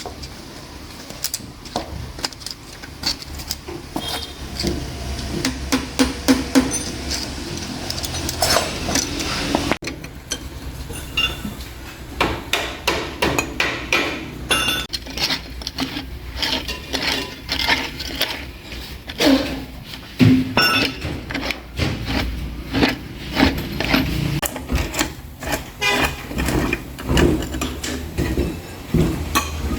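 Hand tools and metal parts knocking and clinking in an irregular run of sharp taps and clanks, over a steady low rumble.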